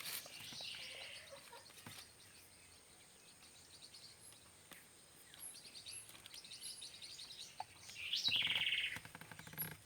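Small birds chirping, with scattered high calls and a louder, fast trill that begins with a rising note about eight seconds in.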